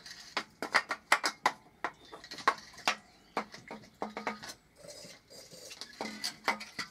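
Sharp metallic clinks and knocks, with no engine running. A quick run of about five clinks comes in the first two seconds, then more scattered ones.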